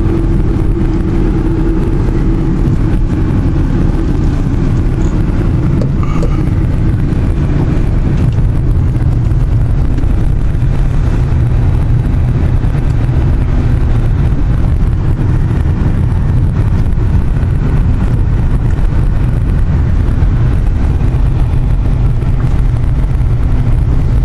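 A car driving, heard from inside its cabin: a steady, loud low rumble of engine and tyre noise.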